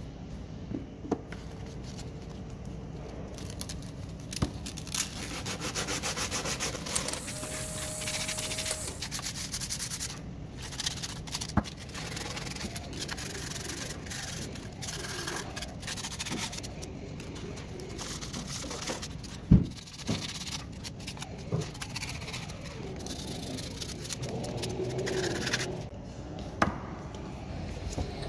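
Painted metal skateboard truck baseplates and hanger being hand-sanded with a piece of sandpaper: a scratchy rubbing that swells and fades stroke by stroke as the old paint is scuffed off before repainting. Light knocks as parts touch the mat, with one sharp knock about two-thirds of the way through.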